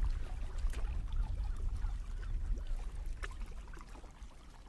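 Small waves lapping and splashing against a kayak hull at water level, with a steady low rumble underneath; the splashing dies down near the end.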